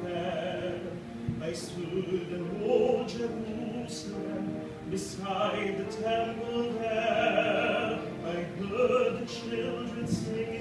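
A man singing a slow song solo, holding long notes.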